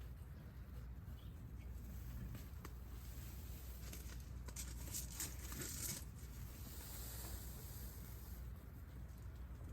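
Faint rustling and crackling over a steady low rumble, with the crackle thickest about four to six seconds in.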